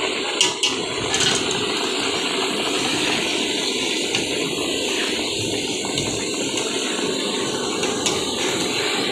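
Steady hissing noise at a chicken deep-frying station, with two sharp metal clicks about half a second in.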